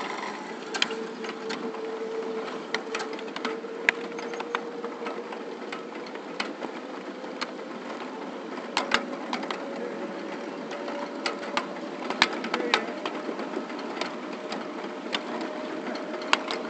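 Ride-on 7½-inch gauge backyard railroad train rolling forward slowly: a steady running noise with a faint whine that climbs slowly in pitch, and irregular sharp clicks from the wheels and couplings on the track.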